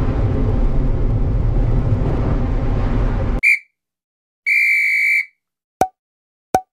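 Mazda MX-5 NB driving, a steady low engine and road noise that cuts off abruptly about three and a half seconds in. A high electronic beep follows: a short one, then a longer one lasting under a second, then two sharp clicks.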